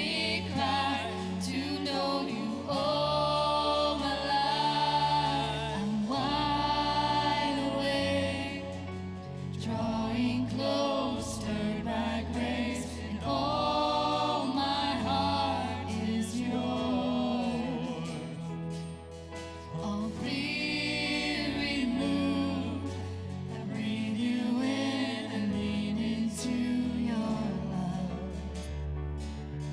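Worship song: voices singing held phrases over instrumental accompaniment.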